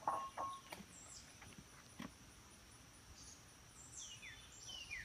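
Birds chirping and calling over a steady high drone of insects, with a few quick falling chirps in the second half. A short knock or handling bump right at the start is the loudest sound.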